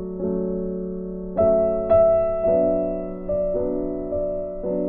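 Slow background piano music: soft chords struck every half second to a second, each fading away before the next.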